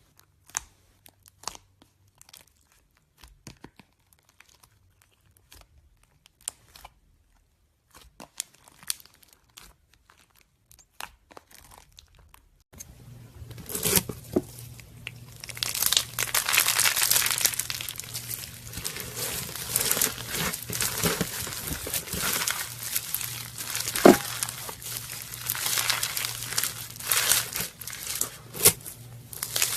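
Slime being squeezed and worked by hand, giving sparse sticky clicks and pops, then from about 13 s in a dense, continuous crackling and crinkling.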